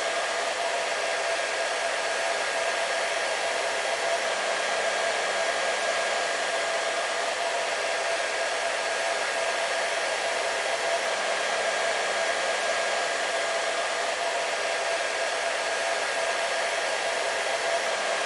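Hair dryer running continuously at a constant setting: a steady, even rush of airflow with a faint motor whine.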